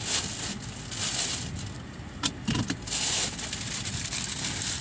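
Thin plastic carry-out bag rustling and crinkling in bursts as it is handled inside a car, with a sharp click a little over two seconds in.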